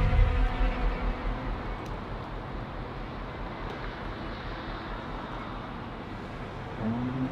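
Steady outdoor traffic and street noise, the steady hum of a road. A tail of tense film-score music fades out in the first second or so, and a short rising tone sounds near the end.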